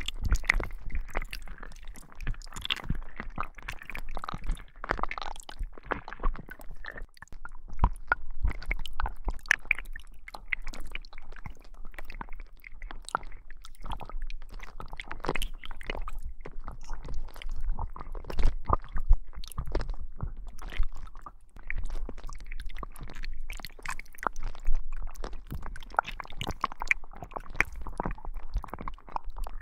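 Slime being squeezed and kneaded close to binaural microphones: a continuous run of short, wet squelches and sticky clicks, used as the sound of a slime tentacle working into the ear.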